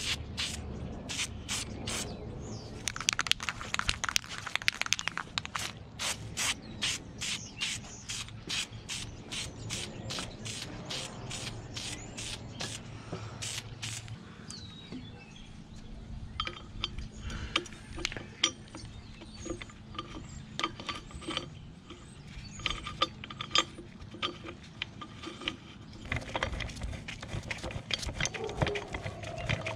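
Ratchet wrench clicking in quick, even strokes, about three a second, as bolts are run in on a Miata engine part; the clicking turns fainter and sparser about halfway through.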